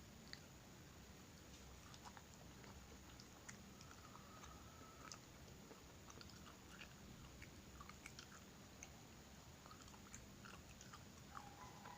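An animal chewing food: faint, scattered crunchy clicks and bites, with a brief faint squeaky tone about four seconds in and again near the end.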